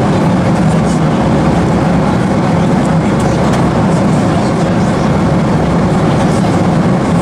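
Steady cabin noise of an Airbus A340-300 in cruise: an even, unbroken low roar of airflow and engines.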